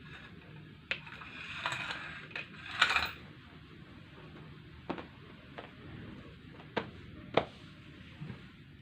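Handling noises: rustling about one to three seconds in, then a scatter of sharp clicks and taps, with no motor running.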